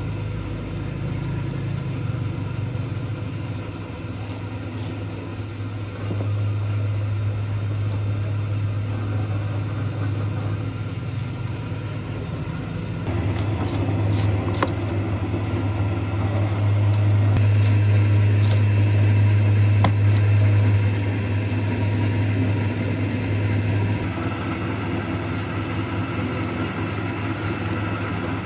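Electric sugarcane juice press running with a steady low motor hum, with a few short scraping knocks partway through as a cleaver strips the peel from a cane stalk.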